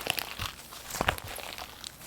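Slime being squished and poked by hand, giving a run of small crackling clicks and pops, with a louder pop at the start and another about a second in.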